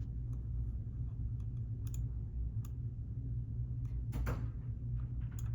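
A few scattered computer keyboard clicks, irregular and sparse, with a short cluster of louder taps just after four seconds, over a steady low hum.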